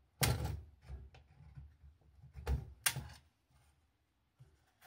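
Sharp clicks and knocks of a screwdriver and hands working at a circuit board in its metal housing, the loudest just after the start and about three seconds in, with lighter taps between.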